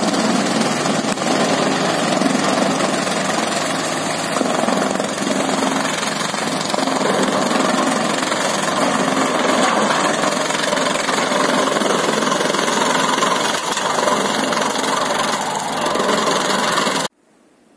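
Tractor engine running under load while it drives a rotary banana-stem cutter, whose spinning blade chops the stalks and throws out the shredded pieces; a loud, steady mix of engine and shredding that cuts off suddenly near the end.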